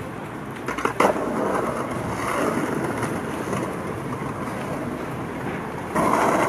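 Skateboard wheels rolling over rough pavement, with a sharp clack about a second in as the board hits the ground. The rolling grows louder near the end.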